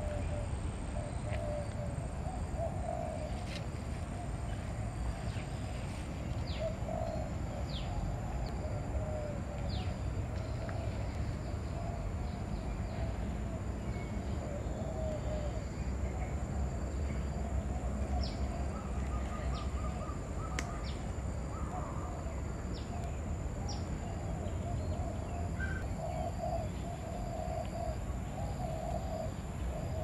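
Birds calling in a bird park: a continuous fluttering mid-pitched calling runs throughout, with short, sharp high chirps scattered through and several close together just past the middle, over a steady low background rumble.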